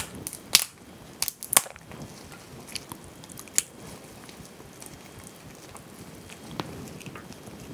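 Boiled crayfish shells cracking and snapping as gloved hands break them apart: several sharp cracks in the first two seconds, another about three and a half seconds in, then softer handling of the shells.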